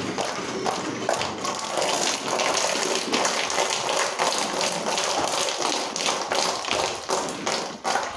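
Milk squirting in quick streams into a steel bucket during hand milking of a dairy cow, a steady run of hissing squirts.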